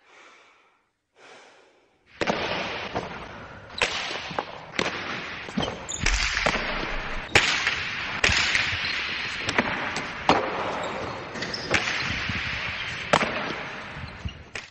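A pelota ball striking the walls and floor of a frontón, sharp smacks about once a second, irregularly spaced, over a steady noisy background. Two faint short swishes come in the first two seconds.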